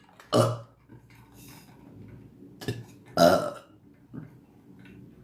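A woman burping loudly twice, once just after the start and again about three seconds in, with a couple of smaller sounds between and after.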